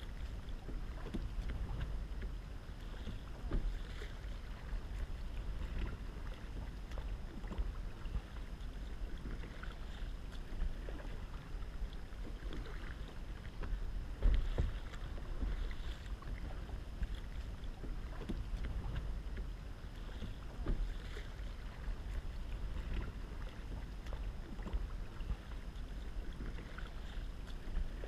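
Double-bladed kayak paddle dipping and splashing in calm water, stroke after stroke, a splash every second or two with one louder splash about fourteen seconds in, over a steady low rumble.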